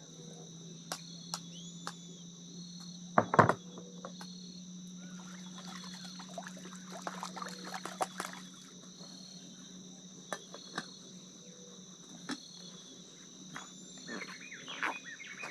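Steady chorus of insects holding two high tones throughout. Over it come scattered clicks and scrapes of cooking utensils on a small camp pan, the loudest a sharp knock about three seconds in and a clatter around the middle.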